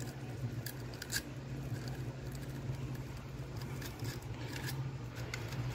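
Light scraping and a few sharp clicks as a PP electrical cable is pushed by hand through the hole in the back of a plastic flush-mount wall box, over a steady low hum.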